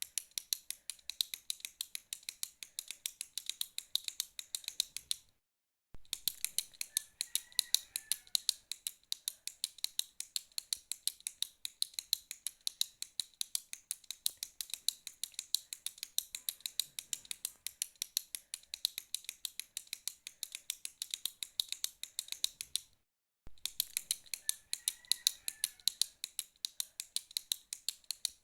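Retractable pen clicked rapidly and repeatedly, several sharp clicks a second, broken twice by a brief dead-silent gap.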